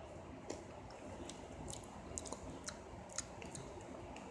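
Faint, irregular crunching clicks of someone chewing crunchy tortilla chips.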